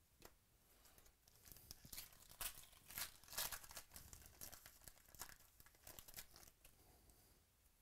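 A foil trading-card pack wrapper being torn open by hand, crinkling and crackling, loudest between about two and four seconds in.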